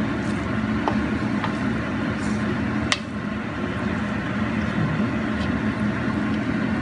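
Wooden spatula stirring sticky glutinous rice in a stainless steel bowl over a steady low mechanical hum, with one sharp click about three seconds in.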